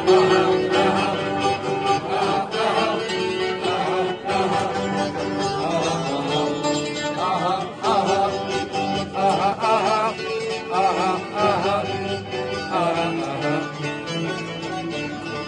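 Music played on plucked string instruments, with a wavering, ornamented melodic line that is strongest in the middle of the passage.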